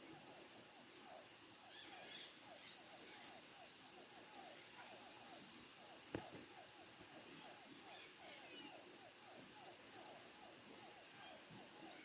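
Insects trilling in a steady, high-pitched continuous buzz, with a lower chirping call repeating about three times a second underneath, and a single sharp click about six seconds in.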